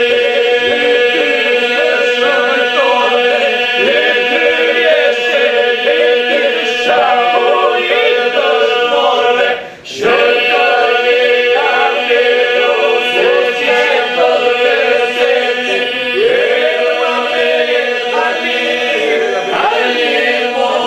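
A group of men singing a religious song together, with a steady drone note held beneath a wavering melody line. The sound drops out for a moment just before the middle.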